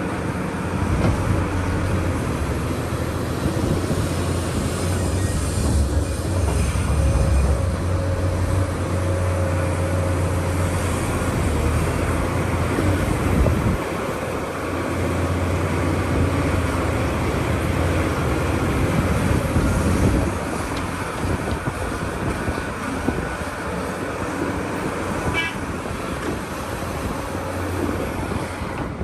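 Large excavator's diesel engine running under load, a deep steady rumble that eases off about twenty seconds in.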